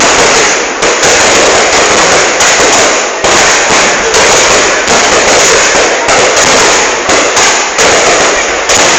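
Fireworks display: a loud, almost unbroken barrage of bangs and crackling shells, with brief lulls about once a second.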